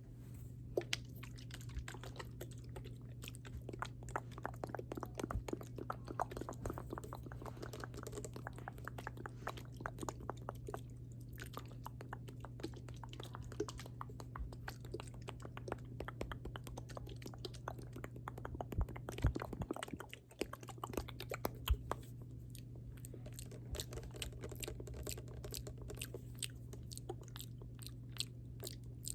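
Close-up wet mouth sounds: dense, irregular clicks and smacks, over a steady low hum.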